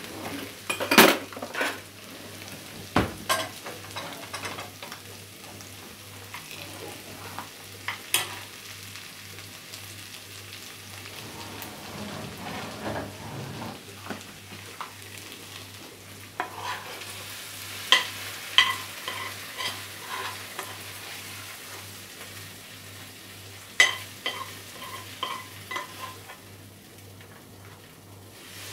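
A metal spoon scrapes and knocks against a frying pan as fried beef is scraped out into a pot of boiling potatoes, over a steady sizzling hiss. Twice, about two-thirds and then five-sixths of the way through, comes a quick run of ringing metal taps as the spoon knocks food off against the pan.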